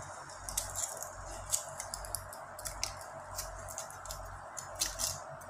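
Scattered small clicks and crinkles, as of small objects or a wrapper being handled close to the microphone, over a steady background hiss.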